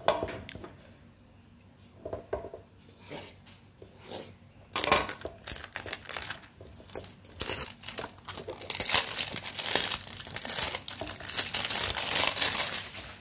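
Clear plastic shrink-wrap film crinkling and tearing as it is peeled off a smartphone box. The rustles are scattered at first, then run on continuously from about five seconds in. There is a sharp tap at the very start.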